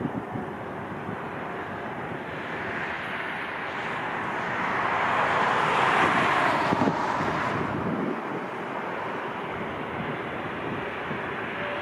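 Jet airliner engine noise swelling to a peak about halfway through and then fading, over wind buffeting the microphone.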